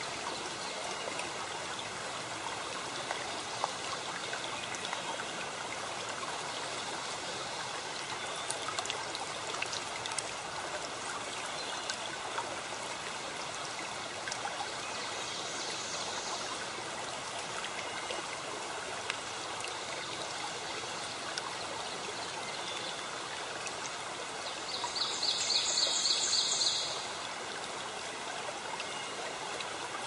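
Steady sound of running water, like a flowing stream. Near the end comes a brief, high, rapidly pulsing trill.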